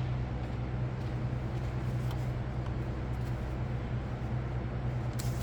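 Steady low hum with an even hiss of compressed air from the workshop air supply feeding a cylinder leak-down tester. A single sharp click comes near the end.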